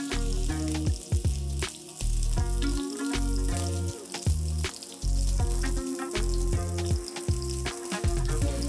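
Background music with a steady bass beat, over chicken seekh kebabs frying and sizzling in ghee in a pan.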